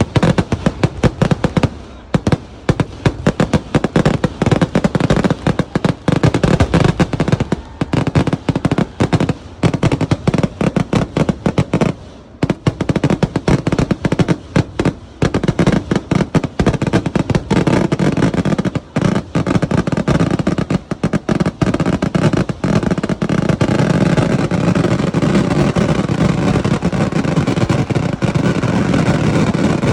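Temple-festival fireworks going off in rapid volleys of cracks and bangs that come faster and faster, merging in the second half into one continuous loud roar of explosions.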